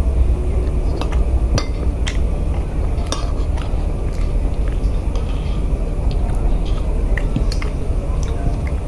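A spoon clinking and scraping against a plate while eating, in scattered light clicks at an irregular pace, over a steady low rumble.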